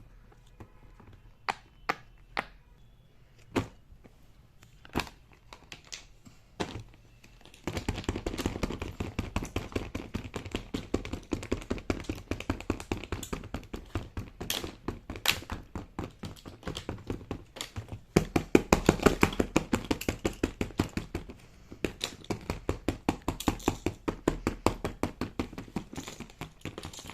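Small plastic fidget toys clicking and tapping. Scattered single clicks come first, then about a third of the way in a fast, continuous run of clicks starts, loudest a little past the middle.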